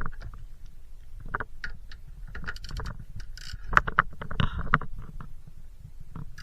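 Clicking and knocking of a ratchet with an M8 bit loosening the hatch latch's bolts, irregular, with a quick run of clicks about two and a half seconds in and louder knocks around four seconds.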